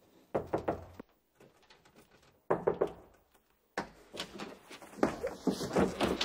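A door creaking open in several short bursts, followed by scuffling and bumping near the end.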